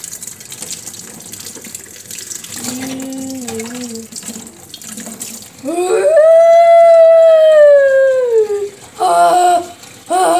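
Kitchen tap running in a steady stream, with a human voice over it: a short low hum about three seconds in, then one long, loud, high cry lasting about three seconds that rises and then falls in pitch, and two short cries near the end.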